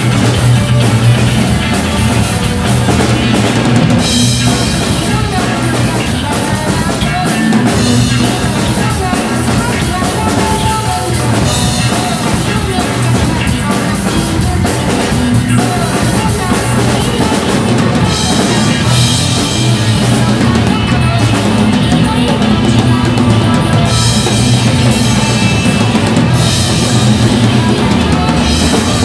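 Drum kit played live in a driving rock groove, with kick drum, snare and cymbals, over a rock backing track whose bass notes change every couple of seconds.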